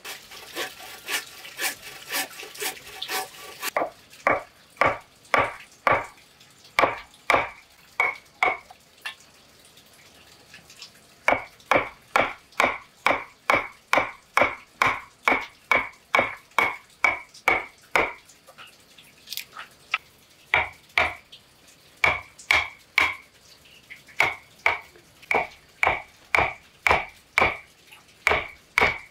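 A hand frame saw cutting timber on a sawhorse with quick strokes for the first few seconds. Then a steel chisel is struck into a block of wood to cut a notch, about two blows a second, each with a bright metallic ring, in runs broken by short pauses.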